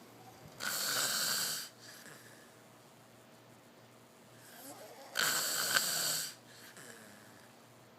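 Snoring: two loud, breathy snores about four and a half seconds apart, each lasting about a second, with quiet breathing between them.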